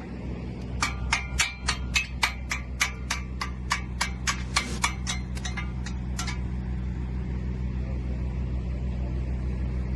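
A hammer striking steel in a quick run of about twenty blows, roughly four a second, each with a short metallic ring, stopping about six seconds in. A steady low machine hum runs underneath throughout.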